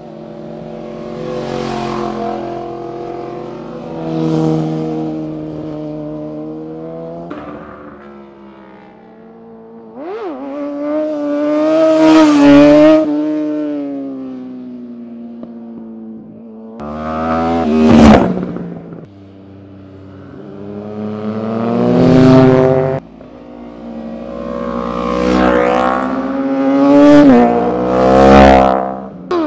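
Sport motorcycles passing one after another through a corner, each engine revving up as it approaches and dropping in pitch as it goes by. There are about seven passes, with the loudest in the second half.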